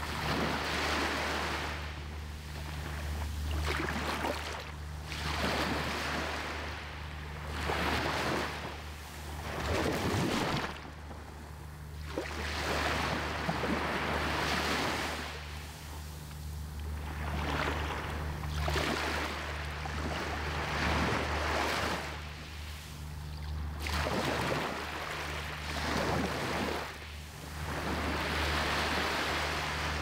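Small waves breaking and washing up a sandy beach, the surf swelling and fading every two to three seconds over a steady low rumble.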